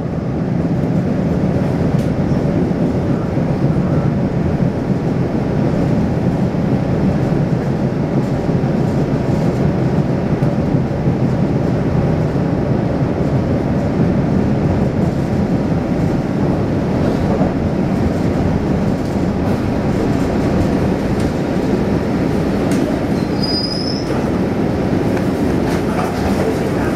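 2007 Siemens MBTA Blue Line subway car, heard from inside, running on the rails with a steady rumble of wheels on track. A brief high wheel squeal comes about 23 seconds in as the train slows into a station.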